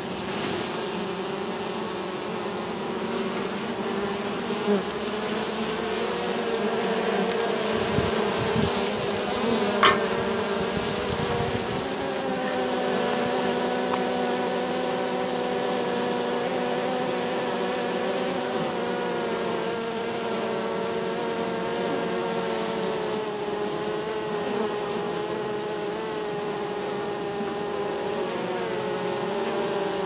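Honey bees buzzing at a hive entrance: a steady hum of many wingbeats, several pitches that drift and overlap. A short click about ten seconds in.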